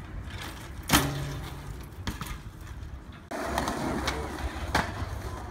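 Two sharp knocks. The first, about a second in, has a brief low ring after it. The second, near the end, is a skateboard clacking down as the rider pops onto a metal stair handrail.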